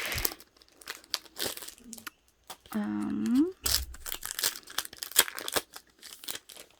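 Packaging being crinkled and torn open by hand to get at photocards, in irregular rustling and crackling bursts. A brief hummed vocal sound comes about three seconds in.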